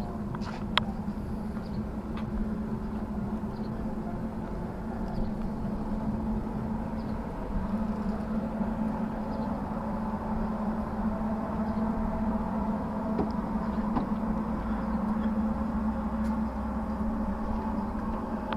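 A steady low mechanical hum with an unchanging drone, over a low rumble, with a few faint clicks.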